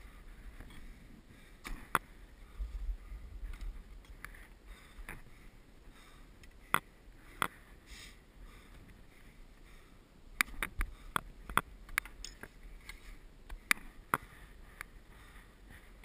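Scattered sharp clicks and knocks of a climber's gear and boots against granite as he scrambles along a rocky ridge, with a short gust of wind buffeting the microphone about three seconds in.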